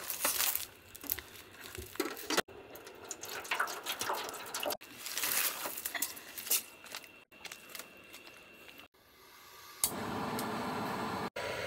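Food being prepared at a camp table in a series of short cuts: wet, squishy handling of food and liquid with scattered clicks and knocks. A steady hiss sets in near the end.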